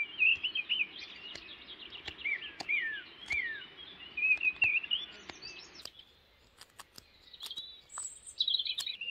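Songbirds singing: a run of quick, varied chirps and short downward-sliding whistles that stops about two-thirds of the way through, with a few more calls near the end. Small sharp clicks of a carving knife cutting into cherry wood come through it, plainest in the quieter stretch.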